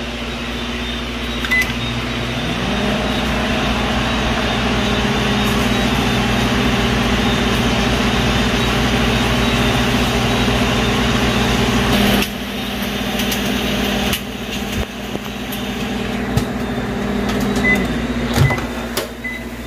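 Microwave oven running, heating food, with a steady hum and fan hiss. Near the end it stops and gives short high beeps.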